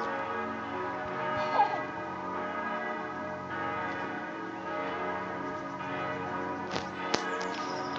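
Church bells ringing: several bells sounding at once, their tones overlapping and hanging on steadily. A couple of sharp clicks come near the end.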